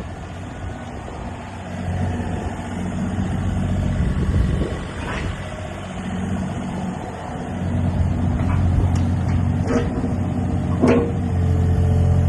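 Kobelco SK28SR mini excavator's diesel engine running, its note growing louder and falling back twice as it takes load, with a few short sharp knocks in the second half.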